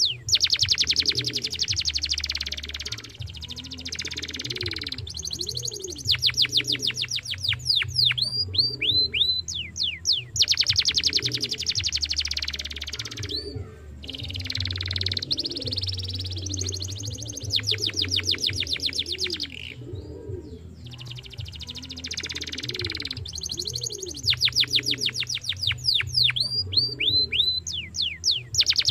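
Young domestic canary singing: fast rattling trills alternate with runs of downward-sweeping whistled notes, in phrases a few seconds long with brief pauses between them.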